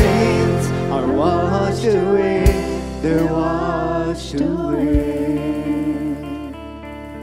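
Live worship band playing: voices singing over guitars, bass, keyboard and drums, with a heavy drum-and-bass hit about every two and a half seconds. About five seconds in, the singing and drums stop and the last chord rings out and fades, with a few picked guitar notes.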